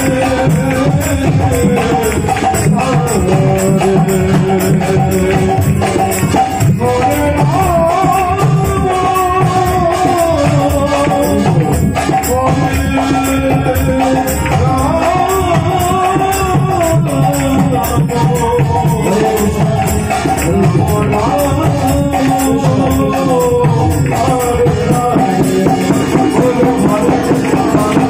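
Live kirtan: a man singing a devotional chant into a microphone over a harmonium, with mridanga drums played steadily underneath.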